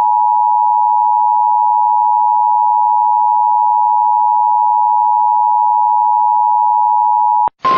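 Emergency Alert System attention signal: two steady tones sounding together at an even level, cutting off suddenly about seven and a half seconds in. Just at the end, a hissy radio broadcast with a single tone comes in.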